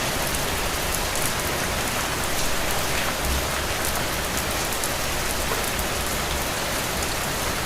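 Heavy rain falling steadily, with dense drops pattering on surfaces and a low rumble that swells and fades underneath.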